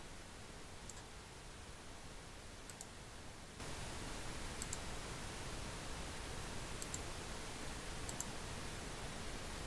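Computer mouse clicking a handful of times, mostly in quick double clicks, over a faint steady hiss that gets louder about three and a half seconds in.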